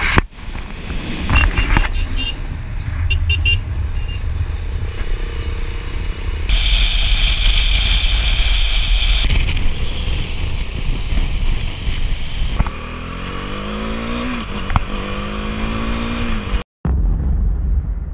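Wind rushing over an action camera's microphone with motorcycle engine noise, in a string of short riding clips cut together. In the last few seconds an engine climbs in pitch as it accelerates, drops at a gear change and climbs again.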